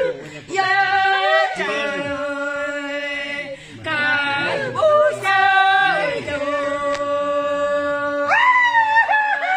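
Unaccompanied singing of a warawi (harawi), the traditional Quechua song of the Andes: long held high notes, each gliding down at its end, and a higher note taken up near the end.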